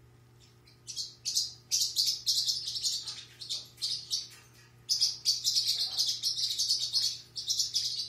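Young parrot calling loudly in rapid, repeated high-pitched bursts while being held and restrained for a nail clip. The calling starts about a second in and breaks off briefly around the middle.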